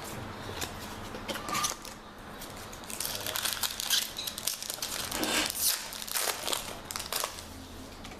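Foil wrapper of a Yu-Gi-Oh! Lord of the Tachyon Galaxy booster pack being crinkled and torn open: irregular crackling rustles, busiest in the middle few seconds.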